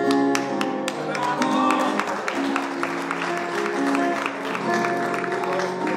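Steel-string acoustic guitar strummed in steady chords, an instrumental passage between sung lines of a live solo song.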